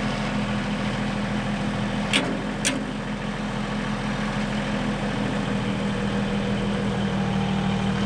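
Compact loader tractor's engine idling steadily, with two sharp metallic clanks about half a second apart a couple of seconds in.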